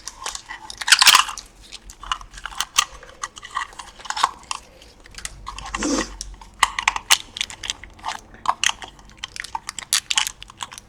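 Crinkling and clicking of plastic packaging and small plastic toy pieces being handled and unwrapped, in irregular short crackles, loudest about a second in.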